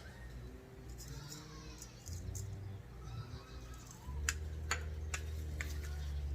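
Raw chicken wings being tossed with dry seasoning in a small bowl: a few sharp clicks and knocks, mostly in the second half, over a low steady hum.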